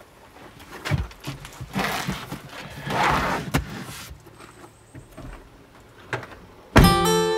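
Bags and cases being handled and set down in a car's open cargo area, with knocks, a thump about a second in and a stretch of rustling. Near the end a sudden thud, and fingerpicked steel-string acoustic guitar music begins.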